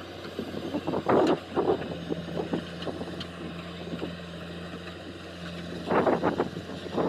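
JCB 3DX backhoe loader's diesel engine running steadily while working the backhoe, with loud clattering bursts as bucketloads of stony soil drop into a steel tractor trolley, about a second in and again about six seconds in.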